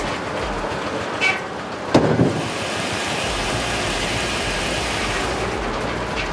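Steady machinery noise, with a short sharp sound about a second in and a louder knock about two seconds in.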